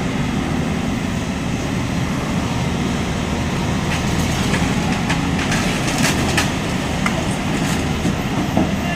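Excavator diesel engine running steadily while demolishing a concrete house, with several sharp knocks and cracks of breaking concrete and debris between about four and eight seconds in.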